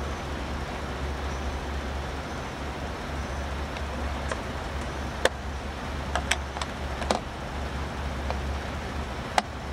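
A few sharp clicks of screwdriver bits and tools being handled in a plastic socket-set case, over a steady low engine hum.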